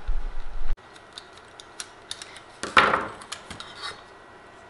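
Light clicks and taps of small parts being handled on a workbench: a thin sheet-metal shield and a small circuit board from an oscilloscope's switch assembly, with one louder clack near three seconds in. A low hum cuts off abruptly under a second in.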